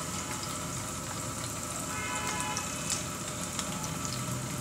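Chopped green chillies, ginger and garlic sizzling in hot ghee in an iron kadai, with scattered small crackles and pops.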